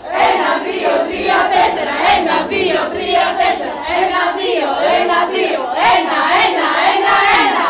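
A group of women singing and chanting together, loud and lively, their voices overlapping.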